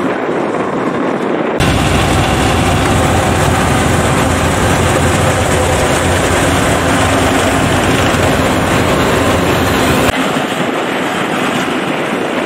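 Yanmar YH850 rice combine harvester running steadily while harvesting, a loud continuous engine drone. It turns suddenly louder and deeper about a second and a half in, then drops back again near the end.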